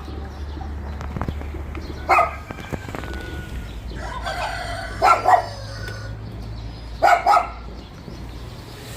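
Chickens calling in short squawks and clucks, in about three bursts with the longest near the middle, over a steady low hum.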